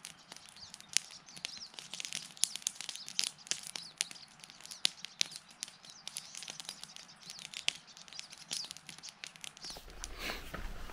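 Small birds chirping and twittering, with many short sharp ticks. Near the end, coffee is poured from a stainless-steel French press into a travel mug.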